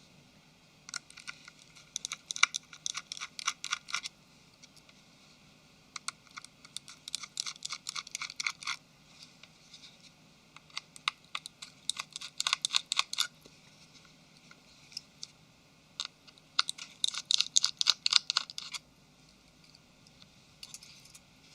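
Four bursts of rapid light clicking, each two to three seconds long, as small screws in a smartphone's casing are backed out with a screwdriver.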